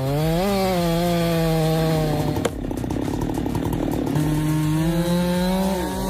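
Chainsaw running at high revs, its note rising and dipping at first. About halfway through it turns rough and rasping for a couple of seconds as the chain bites into wood, then runs clear again.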